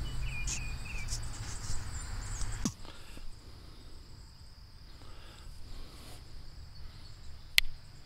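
Crickets and other insects trilling steadily in a high, thin tone. Under them a low handling rumble stops with a sharp click a little under three seconds in, and another sharp click comes near the end.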